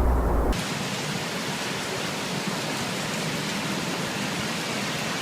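A low rumble stops abruptly about half a second in, giving way to the steady hiss of heavy rain.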